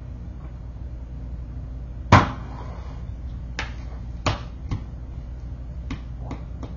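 A single sharp knock about two seconds in, followed by a scatter of about six lighter knocks and clicks, over a steady low hum.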